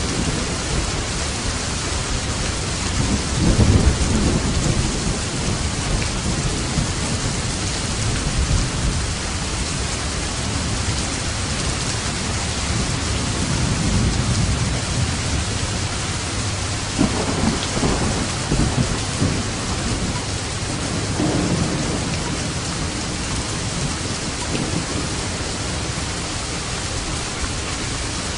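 Steady rain falling, an even hiss, with low rolls of thunder swelling under it, the loudest about three to four seconds in and others further on.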